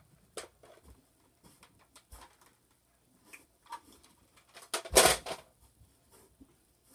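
Light clicks and knocks of plastic toy blasters being handled, with one louder half-second clatter about five seconds in.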